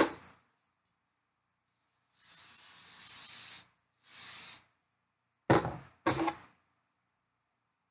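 Aerosol spritz hairspray sprayed in two bursts, a long one of about a second and a half and then a short one, framed by a knock at the start and two sharp knocks near the end.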